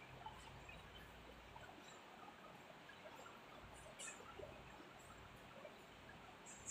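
Near silence: faint room tone with a low hum, and a soft short scratch of a marker on a whiteboard about four seconds in.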